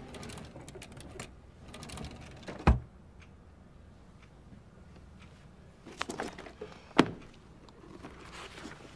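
A wooden desk drawer sliding and a book being handled: a sharp thump about two and a half seconds in, rustling, and another sharp knock about seven seconds in.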